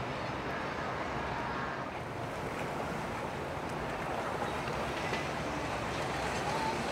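Boat running through waves: a steady rush of water with wind noise on the microphone.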